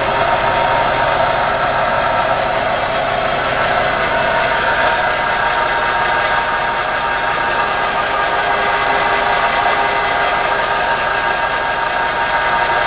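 JET 13" x 40" gear head lathe running steadily at low speed in reverse, its headstock gear train giving a constant whine over a mechanical hum, with the carriage travelling under longitudinal power feed.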